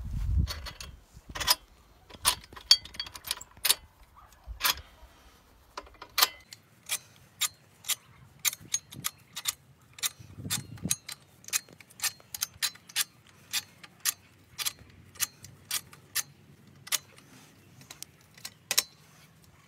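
Irregular sharp metallic clicks and ticks, roughly two or three a second, from hands working the steel plough hitch of a homemade tracked walk-behind cultivator whose engine is not running.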